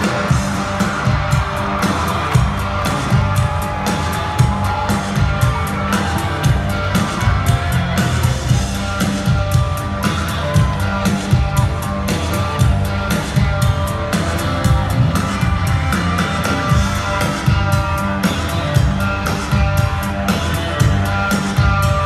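Live country-rock band playing through an arena PA, heard from high in the stands: electric guitar over drums with a steady beat.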